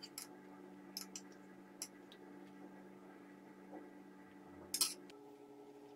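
Faint clinks of a metal spoon against a steel pan as melted butter is spooned over layered dough: a few light clicks, then a louder cluster of clinks near the end, over a steady low hum.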